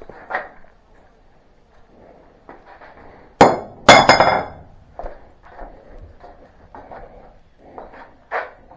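Metal tools knocking and clinking against the steel brush cutter blade and its bolts, with two loud clanks about half a second apart a little past the middle, the second ringing briefly.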